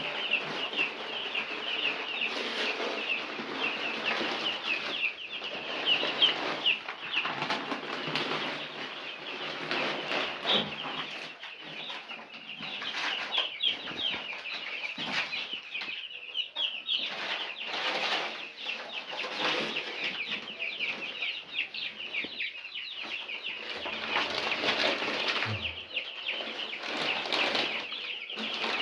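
A brood of four-day-old broiler chicks peeping all together, a dense stream of short high cheeps that never stops, over rustling and scratching in wood-shaving litter that swells and fades.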